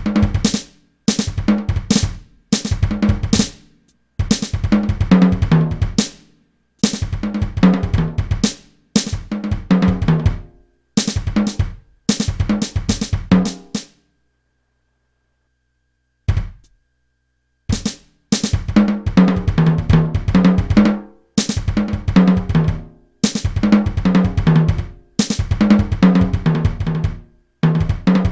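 Drum kit played in short phrases of kick, snare, tom and cymbal hits, each cut off into dead silence. There is a pause of about two seconds about halfway through, then a single hit before the playing resumes.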